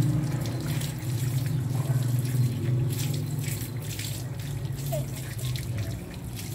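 Water from a garden hose running and splashing over a dog's coat and wet concrete as the dog is rinsed, over a steady low hum.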